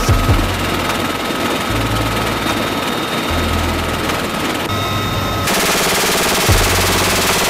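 M134 Minigun firing: a lower rumble for the first part, then a loud, continuous buzzing burst of rotary-barrel fire that starts about two-thirds of the way in.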